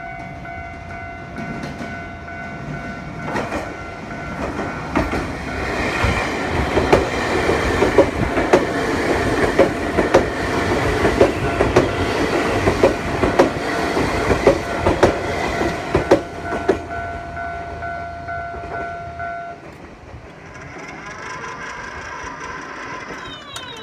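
Level-crossing warning bell ringing as a Nankai Main Line local train passes, its wheels clacking over the rail joints in a rapid run of clicks that builds and then fades; the bell stops a few seconds after the train has gone.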